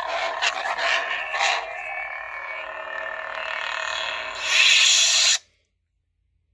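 Saberforge Gen 4 Eco lightsaber's sound board playing its blade hum through a newly fitted replacement speaker, with a few sharp swing or clash hits. A louder burst comes about four and a half seconds in and cuts off abruptly, as the blade shuts off.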